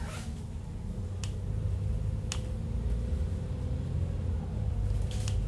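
Cabin rumble of a moving double-decker tram, with a steady hum over it and about five sharp clicks scattered through.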